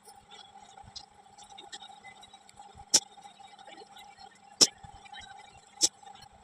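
Eating sounds: sharp clicks and small smacks, three louder ones about three, four and a half and six seconds in, over a faint steady hum.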